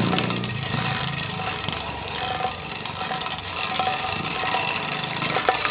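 Motorcycle engine running nearby, fading after passing and growing louder again near the end.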